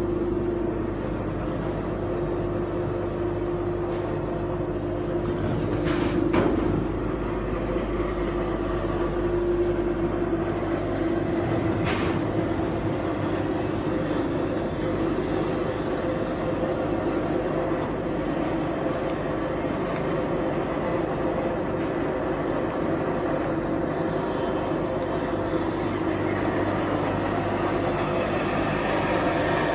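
Automatic rice weighing and packing machine running: a steady mechanical hum with two sharp knocks, about six and twelve seconds in.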